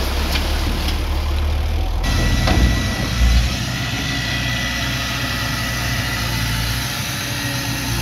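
Komatsu D31P crawler bulldozer's diesel engine running steadily as it pushes dirt. The sound changes abruptly about two seconds in, and there is a low thump a little after three seconds.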